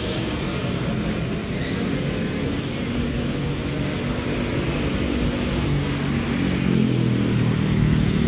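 Busy city road traffic: cars and motorcycles driving by with engines running, a steady rumble that grows louder near the end as a vehicle draws close.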